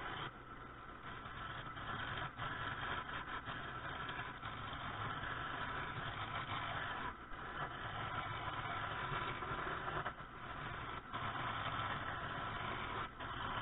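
Wood lathe running while a turning gouge cuts a long ash spindle: a steady motor hum under the scraping hiss of the tool taking shavings. The cutting noise eases briefly a few times as the tool is lifted or moved along the rest.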